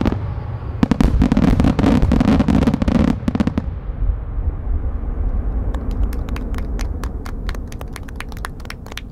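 Wide starmine fireworks finale: a dense barrage of shell bursts with a deep rumble, loudest for the first three and a half seconds. The booms then die away into rapid, sharp crackling.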